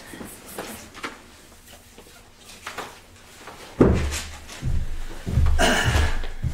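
Footsteps thudding on a hollow wooden platform as a person walks up to the pulpit, starting with a sudden heavy thud about two-thirds of the way in and going on as several low thumps, with a short rustle near the end.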